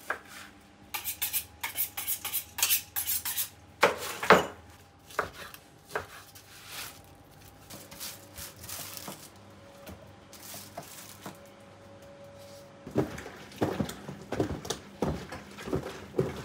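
Metal kitchen utensils and trays clattering during food prep. A quick run of clinks and knocks comes in the first few seconds, then quieter handling, then another run of knocks near the end.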